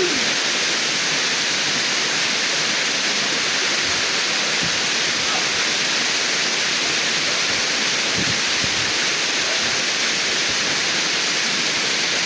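Small waterfall: water falling and splashing in a steady, loud rush close to the microphone.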